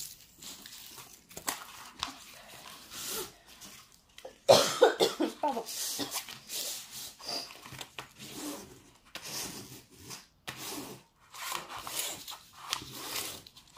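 Paper and plastic film rustling and scraping as a diamond-painting canvas is smoothed down by hand and with a plastic tool. A sudden loud vocal burst, cough-like, comes about four and a half seconds in.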